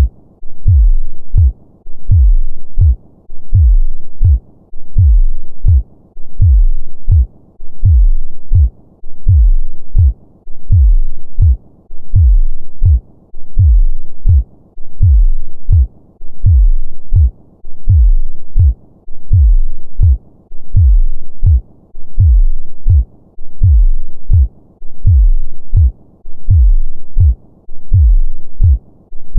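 Human heartbeat beating slowly and steadily as a lub-dub double thump, about one beat every second and a half.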